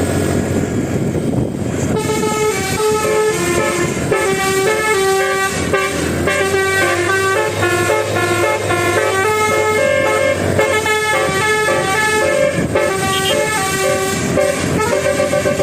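Indonesian 'telolet' bus horn of the basuri type playing a fast melody of changing notes, starting about two seconds in over an engine rumble.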